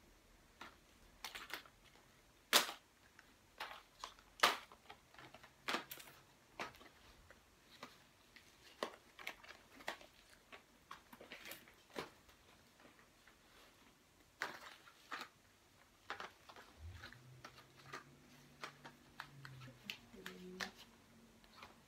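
Irregular sharp clicks and taps, a few spaced seconds apart and sometimes in quick pairs. A low droning tone comes in about seventeen seconds in and steps up in pitch near the end.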